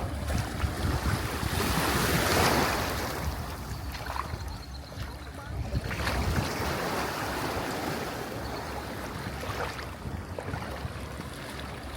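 Wind buffeting the microphone over the wash of sea waves, swelling loudest about two to three seconds in.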